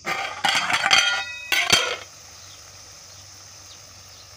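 Aluminium pot lid lifted off a cooking pan, clattering and ringing against the rim with several metal knocks over the first two seconds.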